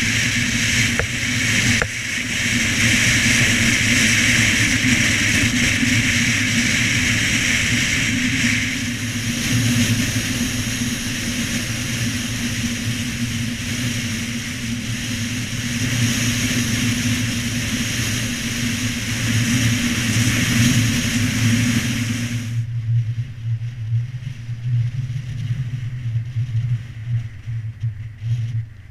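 Car driving along a narrow tarmac road, heard from outside on the bonnet: a steady low engine and road drone under a loud hiss. About three-quarters of the way through the hiss drops away suddenly, leaving the lower rumble with an uneven loudness.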